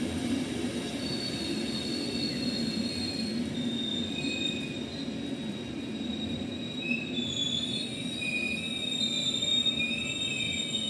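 Train hauled by a Siemens Vectron electric locomotive rolling slowly in on arrival, a low rumble under several high, wavering wheel squeals that shift in pitch.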